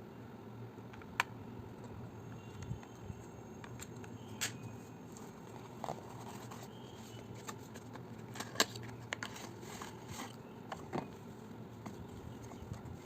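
Handling noises from unboxing: scattered small sharp clicks and short scrapes of plastic parts and packaging, irregular, the sharpest click about a second in and another near nine seconds, over a steady low background hum.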